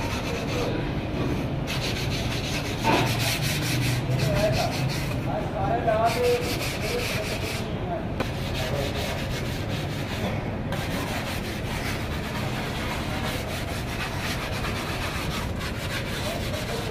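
Hands rubbing and scraping over the surface of an unfired clay squat-toilet casting, smoothing it: a continuous scratchy rubbing made of many quick strokes.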